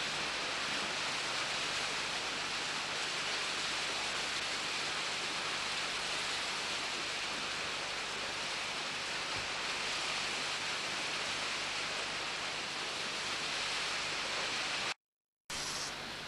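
A steady, even hiss with no distinct events. It cuts out completely for about half a second near the end.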